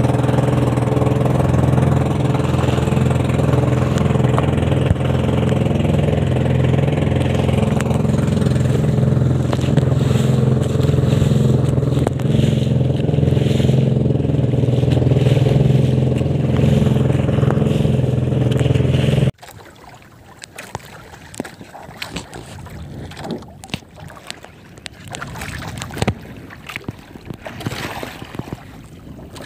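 Outrigger boat's engine running steadily while underway, an even low drone that cuts off suddenly about two-thirds through. After it, water lapping at the hull with wind on the microphone and a few light knocks.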